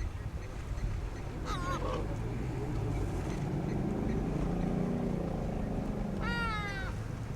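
Two honking animal calls, a short wavering one about a second and a half in and a longer falling one near the end, over the low steady rumble of an idling vehicle engine.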